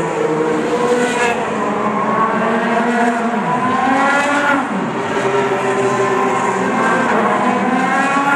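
Open-wheel race cars passing at speed, their engine notes rising as each approaches and dropping in pitch as it goes by, with two quick pass-bys about halfway through, over the continuous sound of other cars running around the circuit.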